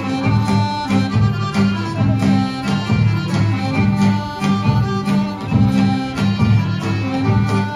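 Serbian folk dance music: accordion and fiddle playing a tune over a steady bass beat.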